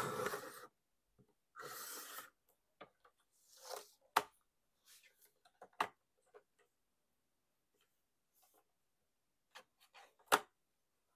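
Fiskars paper trimmer cutting paper board into cards: short scraping strokes of the cutting head sliding along its rail, with scattered sharp clicks and taps as the trimmer and cut pieces are handled. The loudest clicks come about four seconds in and near the end.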